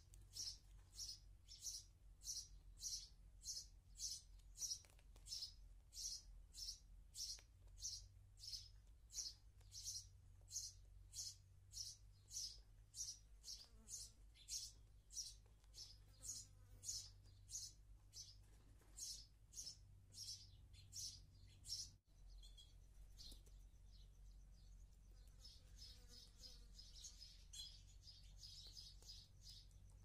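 House sparrow chirping: a steady run of single high chirps, about three every two seconds. After a brief cut about two-thirds through, the chirping comes back fainter and busier near the end.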